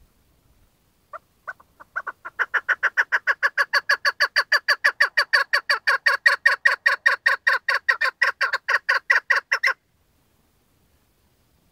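Chukar partridge calling: a few spaced notes, then a long, steady run of rapid clipped notes, about five a second, that stops abruptly near the end.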